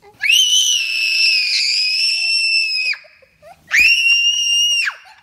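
A girl screaming twice, very high-pitched and ear-piercing. Each scream is held on one steady pitch: the first lasts nearly three seconds, the second is shorter, near the end.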